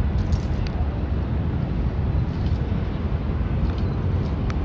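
Steady low rumble of city traffic with wind buffeting the microphone outdoors, and a single light click near the end.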